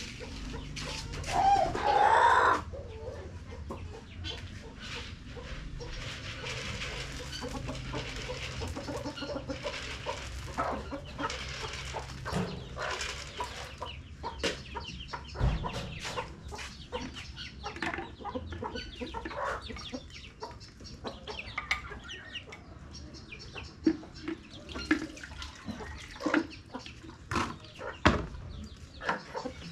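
Domestic chickens clucking, with one loud call about two seconds in. Many short knocks and rustles are heard among the clucks.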